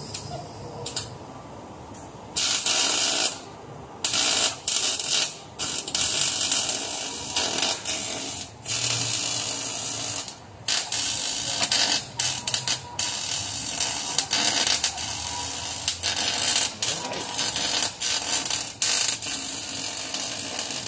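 Electric arc welding in a car's engine bay: the welding arc crackles in repeated runs of a second or two, broken by short pauses as the welder stops and restarts, starting about two seconds in.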